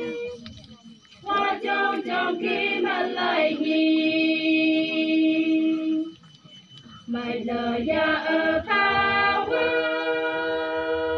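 A group of women singing a traditional Naga folk song without accompaniment, in phrases of quick syllables that each end on a long held note, with short pauses between phrases.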